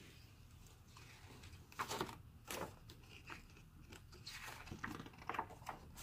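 Pages of a hardcover picture book being turned by hand: a few faint paper rustles and flaps, one about two seconds in and a cluster in the second half.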